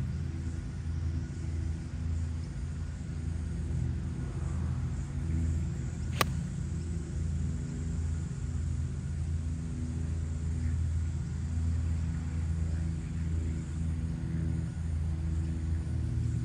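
A single sharp crack of a 9-iron striking a golf ball about six seconds in, over a steady low engine drone.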